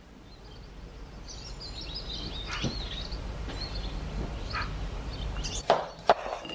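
Birds chirping over a low steady rumble that fades in; near the end, two sharp knocks of a knife cutting through an apple onto a chopping board.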